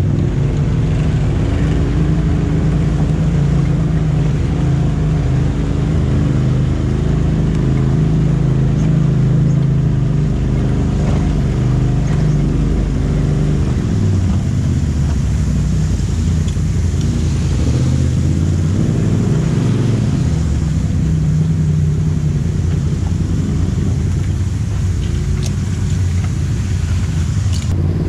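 Polaris RZR side-by-side's engine running at low speed while the machine crawls through a shallow creek, its tachometer near 2,850 rpm. The engine note steps lower about halfway through, then picks up again.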